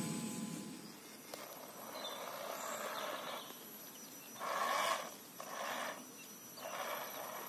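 RC rock crawler's electric motor and gear drivetrain running under load in short throttle bursts: a longer softer stretch, then three brief pulses, the first the loudest.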